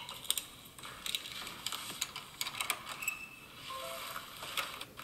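Faint, irregular clicks and taps from a smartphone being handled in the hand.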